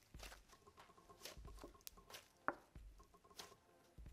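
Faint squishing and crackling of thick cloud slime being kneaded and squeezed by hand: irregular soft wet clicks and small air pops, with one sharper squeaky pop about two and a half seconds in.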